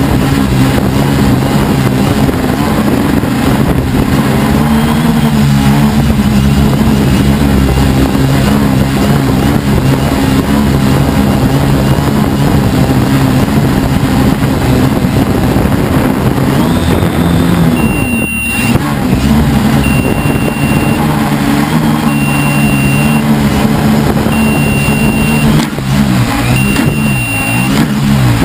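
Helimax Form 500 quadcopter's brushless motors and propellers running loud and close from the onboard camera, their pitch rising and falling as the throttle changes. From about two-thirds in, a short high electronic beep repeats about every second and a half.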